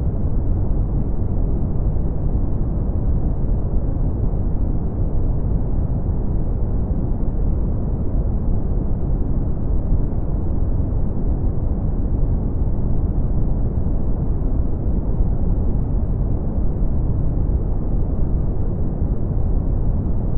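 Synthetic brown noise: a steady, unbroken deep hiss, heaviest in the bass and fading out toward the treble, with no changes or events.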